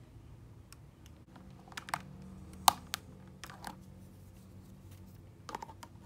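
A handful of light clicks and taps from small objects being handled, a few with a short ringing clink, the loudest about halfway through, over a low steady hum.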